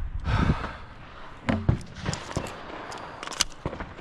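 Competitor running in gear, with hard breathing and footfalls picked up close by a body-worn camera, and a few sharp knocks and clicks partway through.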